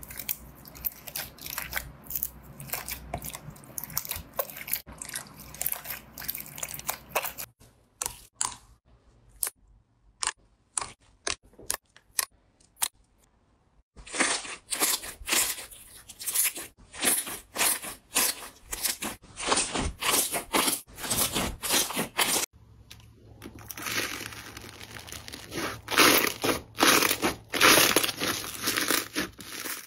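Hands squeezing and kneading slime: dense crackling and popping clicks as trapped air bursts, with sticky squelches. Near the start the slime is packed with foam beads that crunch under the fingers. Between about 8 and 14 s the pops come sparse and single before the crackling turns dense again.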